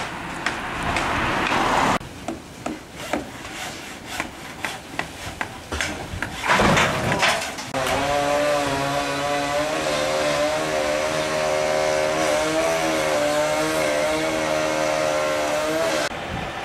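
Knocking and hammering from roof demolition, a few blows a second, then a loud clatter. After that a lorry's engine runs steadily with a droning hum that wavers slightly in pitch.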